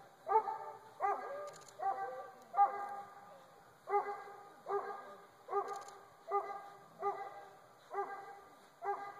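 An eight-month-old dog barking repeatedly during bite training, about one sharp bark every three-quarters of a second, with a short pause about three seconds in.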